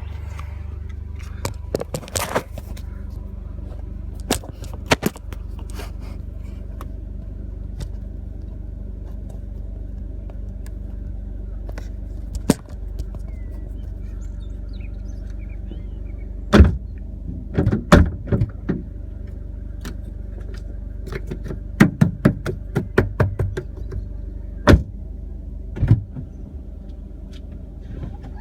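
Car suspension clonking: sharp knocks, some single and some in quick clusters of several, over a steady low rumble.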